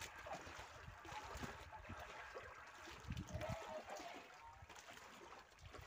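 Faint water lapping and trickling against the hull of a small outrigger boat on open sea, with an irregular low rumble underneath.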